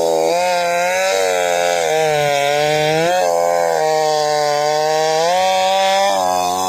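Gas chainsaw running at full throttle while cutting through logs, its engine pitch dipping and rising several times as the cut loads it.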